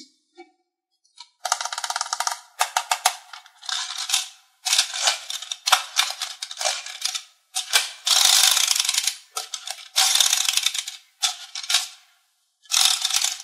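A small plastic toy's mechanism clicking and rattling in a run of short bursts with brief pauses, starting about a second and a half in.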